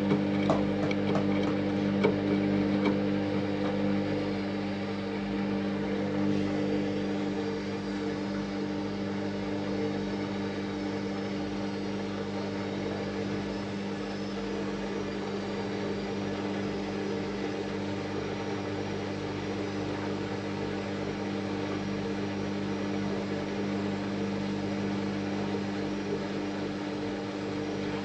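Washing machine running with a steady motor hum, with some clicking in the first few seconds and then an even drone.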